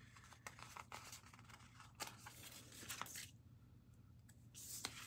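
Faint peeling and rustling of a paper sticker sheet as a planner sticker is lifted off its backing, with a few light ticks. There is a longer peeling rustle about two seconds in and another near the end.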